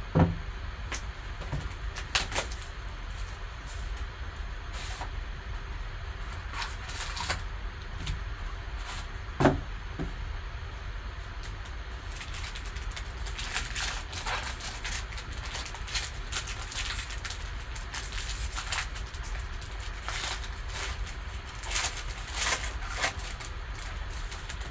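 Sealed box of 2020 Panini Origins football cards handled with a couple of sharp knocks, then foil trading-card pack wrappers crinkling and tearing as the packs are opened through the second half. A steady low hum runs underneath.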